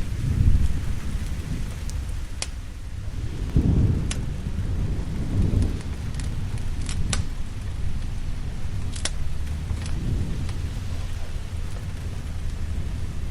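Steady rain with thunder rumbling low underneath, swelling about half a second in and again around four seconds in, and a few sharp crackles of a wood fire scattered through it.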